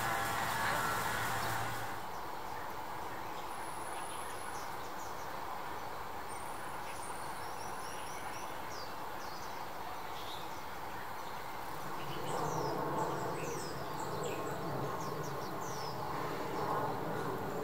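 A steady hum that stops about two seconds in, then short, high, falling chirps of small birds over a steady outdoor hiss. About twelve seconds in, an insect buzzing like bees joins in.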